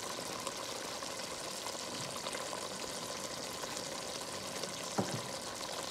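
Thick tamarind curry of dried anchovies and eggplant simmering in a nonstick pan: a steady sizzling bubble. A single soft knock comes about five seconds in.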